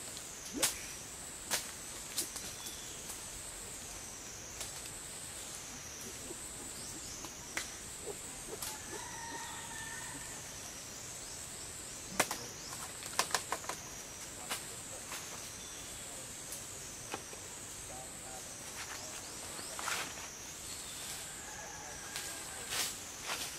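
A high insect drone that wavers up and down in pitch every second or so, with scattered sharp cracks and rustles of branches, bunched about halfway through.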